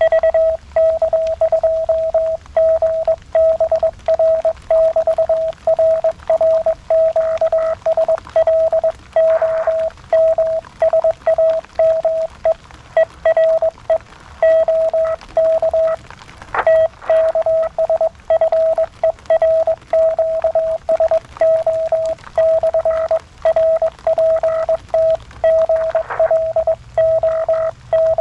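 Morse code (CW) heard from a (tr)uSDX QRP transceiver's speaker: a single steady mid-pitched tone keyed on and off in dots and dashes, a station's CW signal being copied on the 40 m band.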